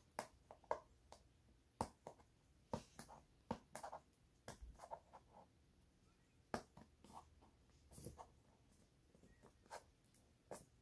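Fingernails picking and scratching at the sealing tape on the flap of a cardboard product box: faint, irregular small scrapes and clicks.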